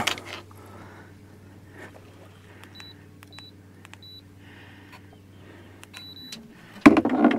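Electric trolling motor humming low and steady while its handheld remote gives several short beeps as the boat is slowed; the hum cuts off about six seconds in. A loud clatter comes near the end.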